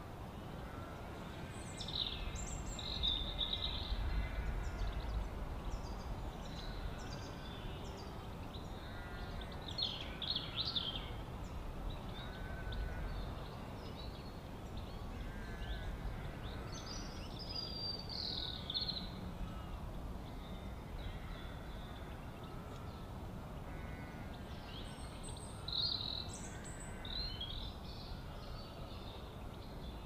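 Wild birds calling and chirping at intervals over a steady low rumble of outdoor background noise, with the clearest calls about two, ten, eighteen and twenty-six seconds in.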